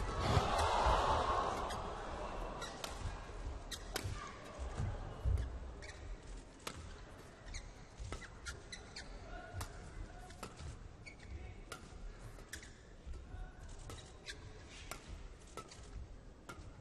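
Badminton rackets striking the shuttlecock back and forth in a long rally, a sharp crack roughly every second, with short squeaks from shoes on the court. A swell of crowd noise rises at the start and fades over the first two seconds.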